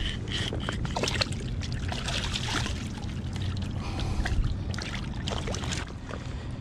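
Splashing and dripping in shallow water as a stringer of sheepshead is lowered in and lifted out, the hooked fish flapping at the surface, with many short splashes.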